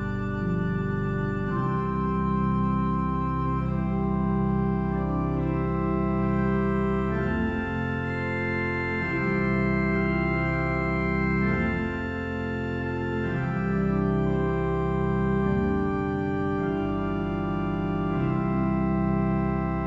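Church pipe organ playing slow, sustained chords over a deep bass, the harmony shifting every few seconds.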